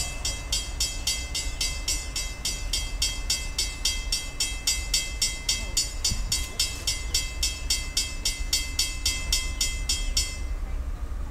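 A rapid, even, high-pitched pulsing, about four beats a second, over a low rumble. The pulsing stops suddenly near the end.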